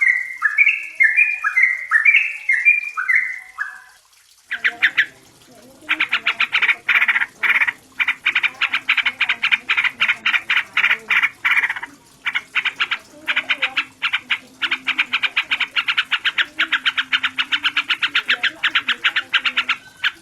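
Yellow-vented bulbul calls: for a few seconds, quick bubbling phrases of falling notes. After a short pause comes a long, fast run of clipped chattering notes, several a second, broken by a few brief gaps.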